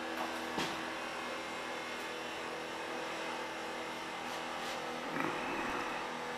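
A steady hum runs throughout, with a few light taps and a short rustle about five seconds in from carpet being worked by hand.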